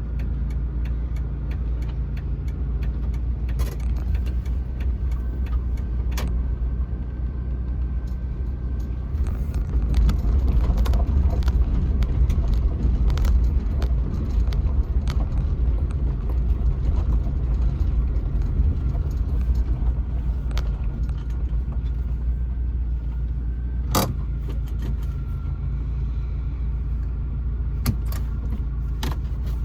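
1999 Jeep Wrangler TJ on the move, a steady low engine and road rumble that grows louder for several seconds about a third of the way in, with scattered light rattles and sharp clicks. No knock comes from the rear end, the repaired rear lower control arm now holding the axle steady.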